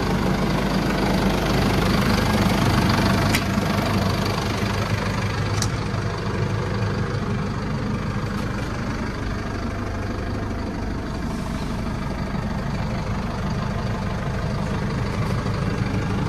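Massey Ferguson 5712 tractor's four-cylinder diesel engine idling steadily, with a couple of light clicks in the first few seconds.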